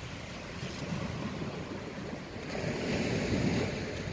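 Sea waves washing against a rocky shore, with wind on the microphone; the wash swells to its loudest about two and a half seconds in.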